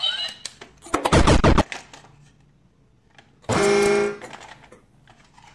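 Electronic sound effects from a battery-operated toy tractor: a half-second burst of rapid clattering clicks, then about two seconds later a short horn-like beep.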